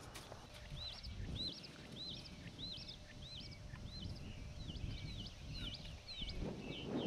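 A songbird singing a repeated whistled note that rises and falls, about one every half second, switching about two-thirds of the way through to down-slurred notes; a low rumble runs underneath.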